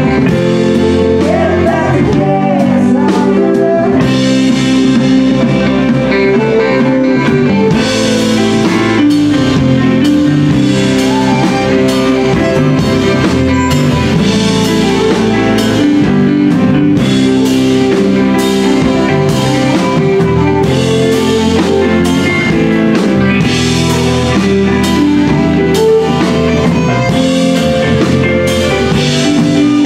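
Live band music: violin with electric and acoustic guitars, keyboard and drums playing together.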